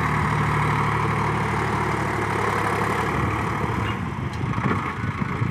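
Sonalika tractor's diesel engine running steadily under load as it pulls a fully loaded trolley of soil and rock, with an even low hum.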